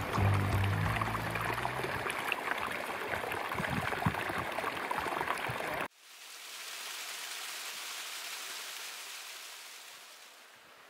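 Small snowmelt cascade pouring over rock: a steady rushing hiss that comes in after a sudden cut about halfway, swells, and fades away near the end. Before the cut, background music ends and a rougher, crackling noise follows.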